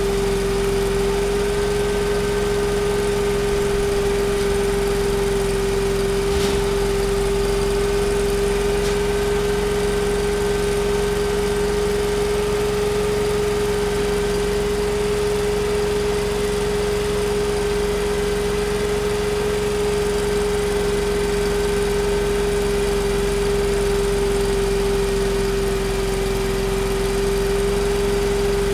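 A factory machine running with a steady, unchanging hum that holds one strong tone, over a fainter mechanical hum and noise, with one faint click about six seconds in.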